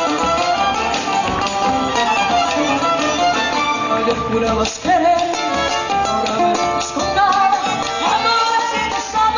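Argentine folk music with a violin carrying the melody, played without singing, with a brief break about five seconds in.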